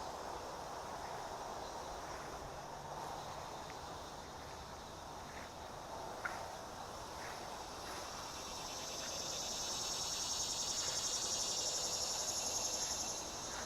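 An insect's high, rapidly pulsing buzz swells in about eight seconds in and holds for about five seconds, over a steady low background hiss.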